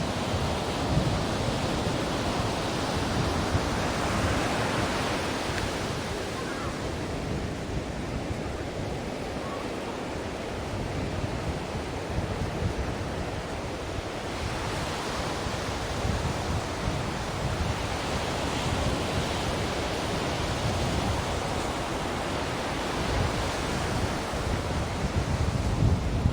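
Ocean surf washing ashore in a steady wash of noise, swelling twice as waves break and run up.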